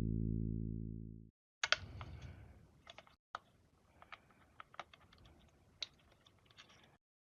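Guitar background music fading out, then irregular small clicks and taps of plastic console parts and screws being handled during reassembly.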